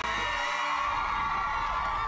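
Studio audience of children cheering and screaming. The low end of the theme music drops out about half a second in.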